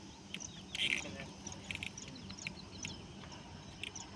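Faint short high bird chirps with scattered light clicks and knocks.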